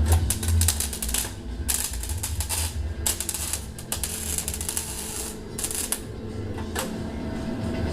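Arc of a 110-volt welder crackling and hissing in irregular stretches of a second or two, laying a bead on a car's oil pan.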